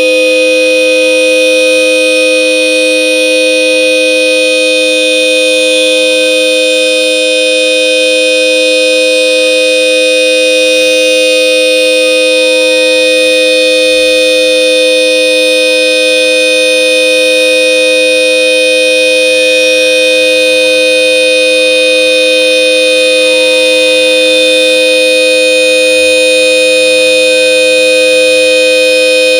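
Hella Supertone twin car horn sounding in one loud, steady, unbroken blast, its two notes held together as a chord.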